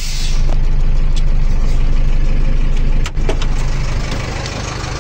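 Truck engine idling steadily. A sharp click about three seconds in, after which the engine sounds a little quieter.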